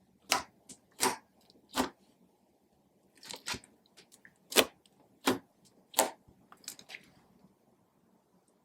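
Clear slime being squeezed and pressed by hand, giving a series of sharp squishy pops and crackles as trapped air bursts, roughly one every second, with a short cluster near the middle.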